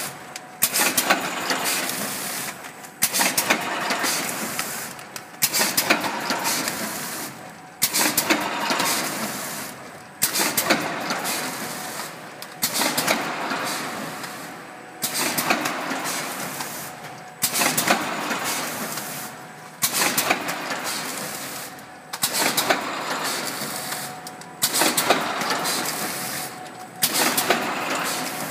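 Vertical form fill seal auger packing machine running in a steady cycle. Every two and a half seconds or so there is a sharp clack followed by a fading rush of mechanical noise, one cycle per bag.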